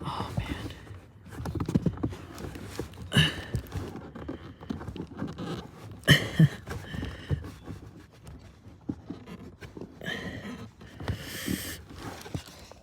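Plastic clicks, knocks and rattles from hands working at the cabin air filter housing under the dashboard while the filter is taken out. A few louder breaths come with the effort, the loudest about six seconds in.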